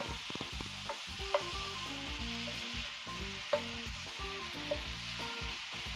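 Vegetables sizzling in oil in a skillet while being stirred with a wooden spatula: a steady hiss, with the spatula knocking against the pan several times.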